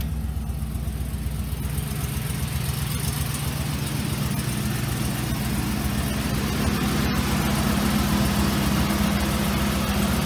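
Freshly installed replacement V8 in a Chevrolet Express 3500 van idling steadily just after its first start, running smoothly. It grows somewhat louder about halfway through as the open engine bay comes close.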